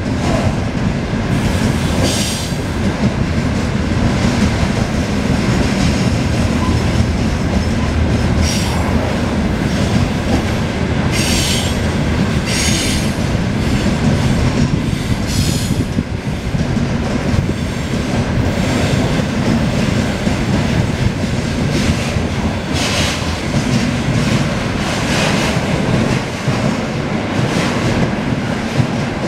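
Freight train wagons rolling past, open gondolas followed by container flatcars, their wheels making a steady heavy rumble and clatter on the rails. Several short, high-pitched squeals from the wheels cut in now and then.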